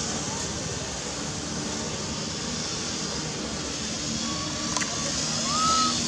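Steady outdoor background noise with a faint low hum, like distant traffic, and a brief high whistle-like call near the end.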